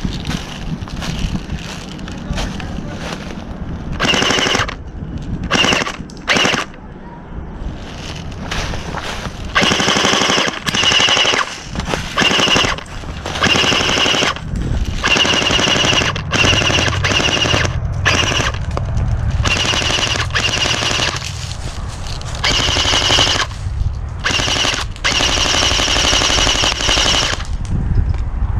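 Airsoft rifles firing repeated full-auto bursts of rapid clicking shots, each burst a second or two long, starting about four seconds in and going on until near the end.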